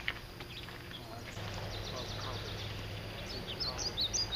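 Birds chirping in a run of quick, short high notes that begins about three seconds in, over a low steady hum, with a few clicks near the start.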